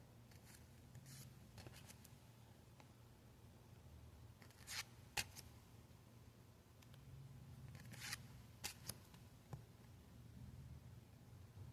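Faint, brief rustles and clicks of trading-card packs and cards being handled, in three short clusters with a sharper click about five seconds in, over a low steady room hum.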